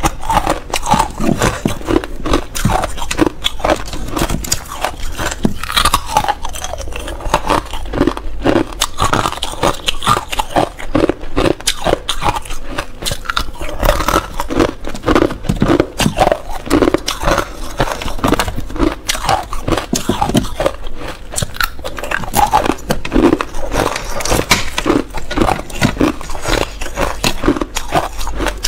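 Thin, clear ice being bitten and chewed: loud, continuous crunching and crackling of the brittle shards.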